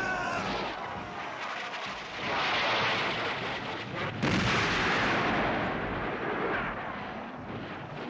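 Battle sound effects of cannon and musket fire: a dense, continuous din of shots and booms that swells twice, about two and about four seconds in. A horse's neigh trails off at the very start.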